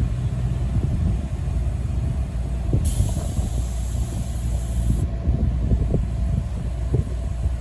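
Air compressor running steadily, inflating a car tire freshly repaired with a plug. A high hiss comes in about three seconds in and stops about two seconds later.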